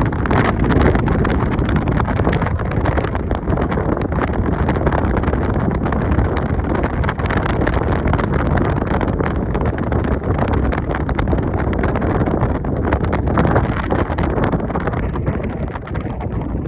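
Wind buffeting the microphone: a steady loud rumble with frequent crackles.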